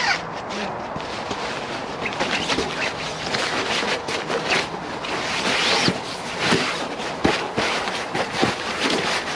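Rustling and crinkling of a Dutch army hooped bivi bag's fabric as an inflated Forclaz air mat is pushed inside and smoothed flat by hand, with a few sharp knocks in the second half.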